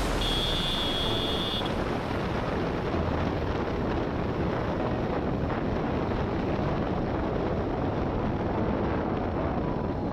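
Wind rushing over the microphone of a TVS Apache RR310 motorcycle cruising at road speed, with the bike's running sound under a steady noise.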